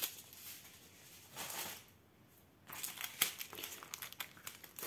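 Thin plastic bags of diamond-painting rhinestones crinkling as they are handled: a short rustle, a brief pause, then irregular crinkling with small clicks.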